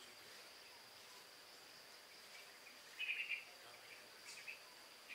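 A steady high insect trill from the garden, faint, with a short burst of bird chirping about three seconds in and a few softer chirps after it.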